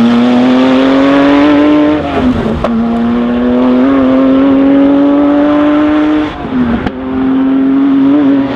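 Porsche 911 GT1's twin-turbo flat-six accelerating away, its note climbing steadily and dropping sharply at upshifts about two seconds in and about six seconds in, with a sharp crack soon after each shift.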